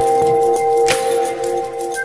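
Background music: held chord tones with a percussive hit about a second in.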